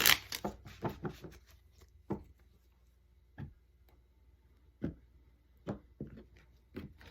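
Tarot cards being dealt onto a table. A shuffle of the deck finishes right at the start, then single cards are laid down as short, soft taps and slaps, one every half second to second and a half.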